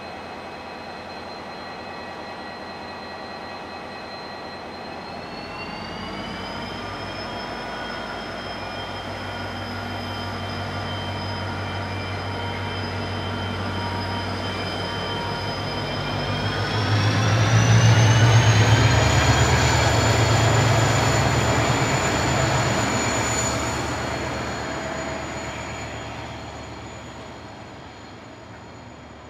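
KiwiRail DFB-class diesel-electric locomotive pulling a train away, its engine throttling up with a high whine that climbs in pitch twice, about six seconds in and again about seventeen seconds in. It is loudest about eighteen seconds in, then fades as the train moves off.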